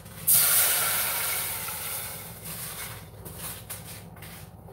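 A cup of water poured into a hot nonstick saucepan, hissing sharply as it hits the hot metal about a third of a second in, then fading steadily over the next few seconds.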